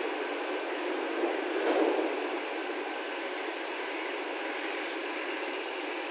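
Steady hiss of air around the pneumatic cylinder of a folding steel staircase as the steps fold up, with a brief louder rush about a second and a half in.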